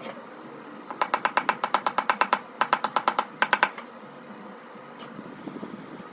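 Rapid light tapping on sheet metal, about eight taps a second in three short runs with brief pauses, typical of a tap-down tool and hammer knocking down high spots during paintless dent repair.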